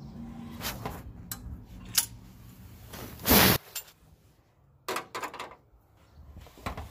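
Sharp metal clicks and clinks as a heated crankshaft timing sprocket is worked onto the crank snout of a Chevy 454 big-block. About halfway through there is one short, loud rushing noise, after which a low background hum stops, followed by a few more clinks.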